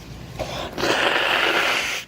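A girl's long, noisy rush of breath lasting just over a second, after a short voiced catch just before it.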